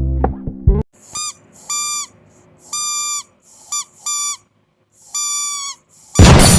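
Background guitar music stops abruptly, then about six short, high, hooting notes from a toy trumpet, played one at a time with short gaps. A loud, harsh blast of noise starts near the end.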